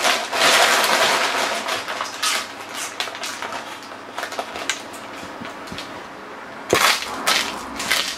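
Foil snack bag crinkling and crackling as it is handled and squeezed, in irregular bursts, loudest at the start and again in a burst near the end.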